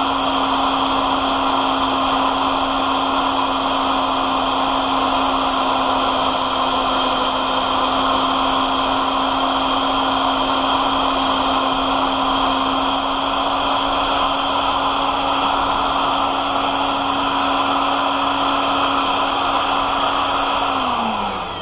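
Drill press running steadily while a Walter high-speed-steel split-point twist bit cuts dry through a hardened tool-steel wrench, with an even motor hum and cutting noise. Near the end the motor is switched off and winds down, its pitch falling.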